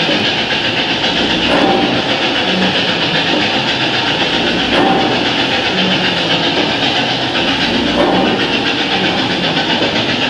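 A steam locomotive's running sounds: a steady hiss of steam with rail noise, swelling slightly about every three seconds as the driving wheels and valve gear turn.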